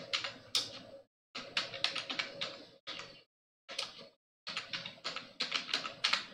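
Computer keyboard being typed on: quick runs of keystrokes in several bursts with short pauses between them.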